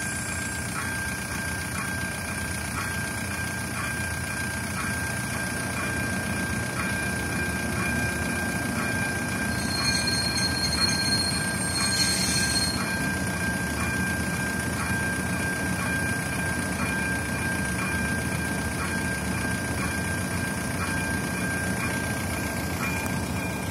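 Level-crossing warning bell ringing evenly, about three rings every two seconds, as a diesel locomotive approaches; its low engine rumble grows from about six seconds in. A high wheel squeal sounds for about three seconds, starting about ten seconds in, the loudest moment.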